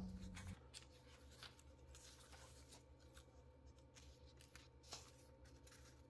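Near silence, with faint rustling and soft clicks of paper as the pages of a booklet are handled and turned; one slightly louder rustle about five seconds in.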